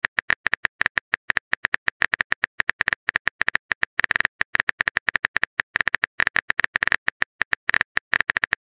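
Phone keyboard typing sound effect: a rapid run of short, sharp key clicks, about eight a second, as a text message is typed out letter by letter.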